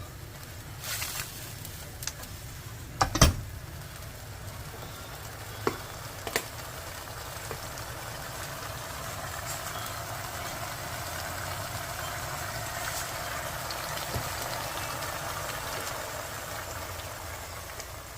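Zucchini stir-frying in a pan: a few sharp knocks within the first seven seconds, the loudest about three seconds in, then sizzling that builds up over the second half, over a steady low hum.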